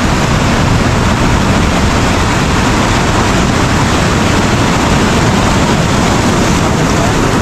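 Ocean surf washing up a sandy beach: a loud, steady rushing noise.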